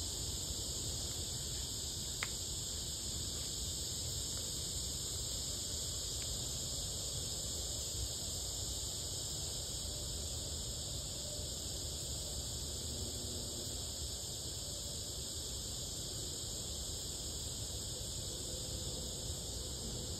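A steady, dense insect chorus, high-pitched and unbroken, over a low rumble.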